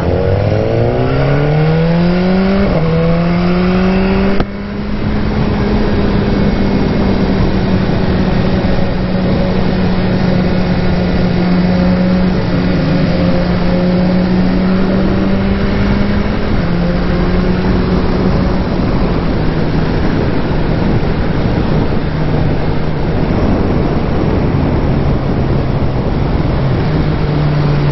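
BMW S1000R's inline-four engine pulling up through the gears: the revs climb, a shift about two and a half seconds in and another about four and a half seconds in, then it runs at a steady pace. The revs drop a step about sixteen seconds in and hold steady after that.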